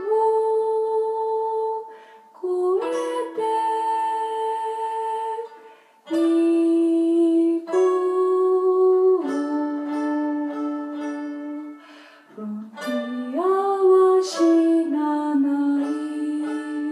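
A woman singing slow phrases of long-held notes, accompanied by a Suzuki round-back mandolin, with brief breaks between the phrases.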